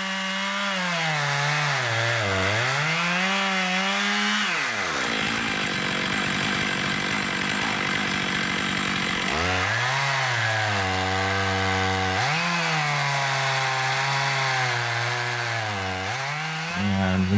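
Stihl MS461 two-stroke chainsaw on an Alaskan chainsaw mill, running at full throttle while ripping a slab lengthwise from an ash log. Its engine note sags and recovers a few times as the chain loads up in the cut.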